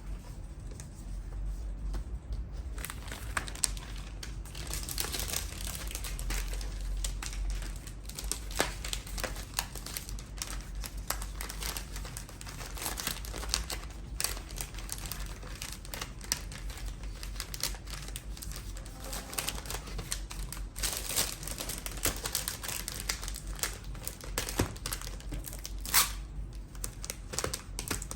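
Packaging being handled: crinkling and rustling with many scattered clicks and taps.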